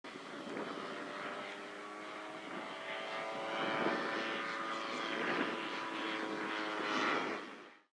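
Radio-controlled model airplane's engine and propeller buzzing steadily in flight. It grows louder and softer several times as the plane passes, then fades out near the end.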